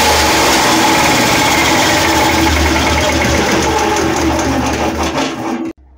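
Small generator engine running, then slowing after being shut off at the manual switch, its pitch sagging and its sound easing. It cuts off abruptly near the end.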